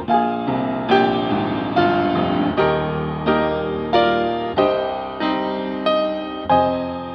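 Slow piano music: a chord struck about every three-quarters of a second, each left to ring and fade before the next.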